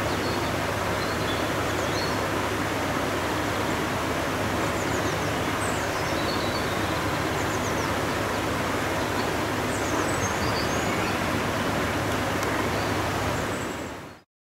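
Steady rush of running water from a garden stream, with small birds chirping now and then over it. It fades out near the end.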